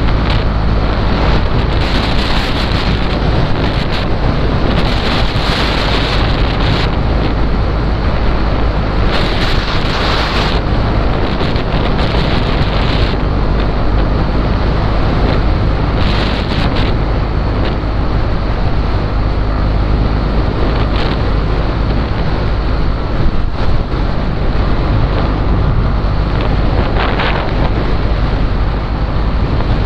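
Wind buffeting the microphone of a moving motorcycle, over the steady low drone of its engine and road noise. The hiss swells in louder spells several times, about two, five, nine to ten, sixteen and twenty-seven seconds in.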